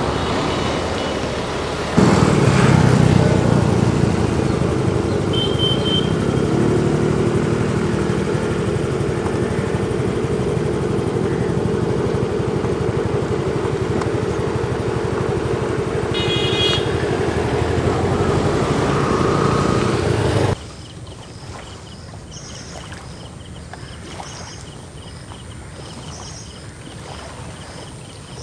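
An engine running close by, its pitch rising and falling, until it cuts off abruptly about twenty seconds in. A quieter background follows, with short high chirps repeated every second or so.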